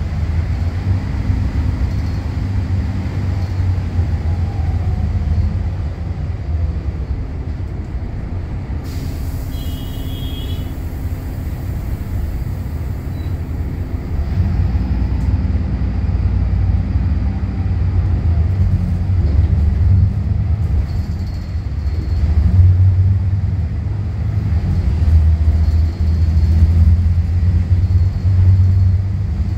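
Volvo B8RLE bus's six-cylinder diesel engine and ZF automatic transmission heard from the rear passenger seats, running steadily, easing off a little way in and then pulling harder again from about halfway. About ten seconds in there is a short hiss of air with a few quick high beeps.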